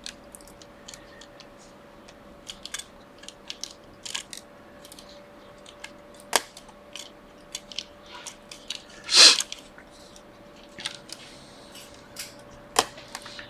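Scattered small clicks and taps of parts and tools being handled while a MacBook Air is reassembled, with one louder scrape about nine seconds in. A faint steady hum runs underneath.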